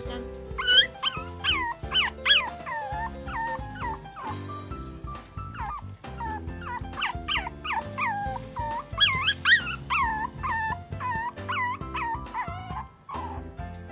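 Teacup toy poodle puppy whining: many short high-pitched cries, each falling in pitch, in two runs with a short lull between, the puppy's excited reaction to her owner coming home. Background music plays underneath.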